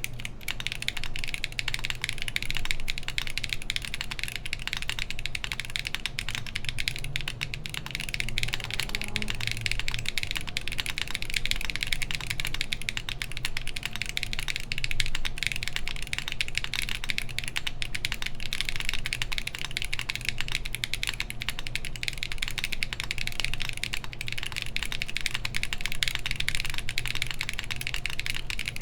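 Continuous typing on a Matrix Lab Magic3 60% HHKB-layout mechanical keyboard with Everfree Grayish tactile switches, GMK keycaps and an aluminum plate: a dense, unbroken stream of keystroke clacks. A fan hums steadily underneath.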